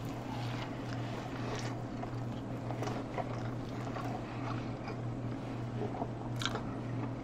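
A man biting into and chewing a sticky fried-chicken-and-glazed-donut sandwich, with faint wet mouth clicks and a sharper click about six and a half seconds in, over a steady low electrical hum.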